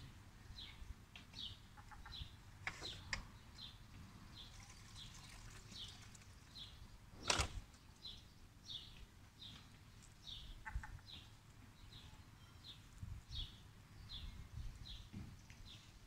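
A small bird chirping over and over, a short high chirp roughly every half second. A sharp click sounds about seven seconds in.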